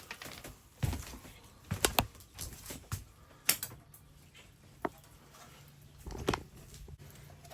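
Scattered clicks and knocks of hard parts being handled and set down, about five separate knocks over several seconds.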